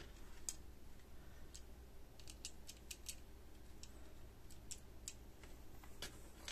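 Plastic IC sockets being handled and pushed into the holes of a printed circuit board: a series of faint, irregular light clicks and taps.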